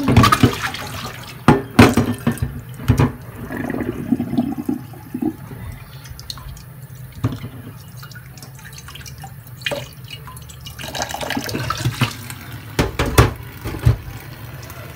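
Tap water running into a glass bowl in a stainless-steel sink while a chayote is rubbed and rinsed by hand, with sharp splashes and knocks now and then.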